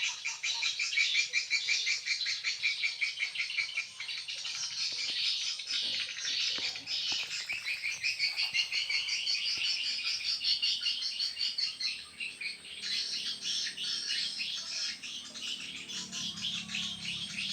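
Dense, rapid, high-pitched chirping from small animals, many short calls a second, going on almost without a break and thinning briefly about two-thirds of the way in.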